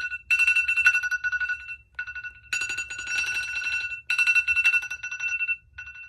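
More than thirty smartphones (Samsung Galaxy, iPhone, Google Pixel, Huawei, Xiaomi) sound their alarms at once: a dense layer of electronic ringtone beeps and chimes in bursts of about one and a half seconds with short gaps. Underneath is a low, steady buzz of the phones vibrating.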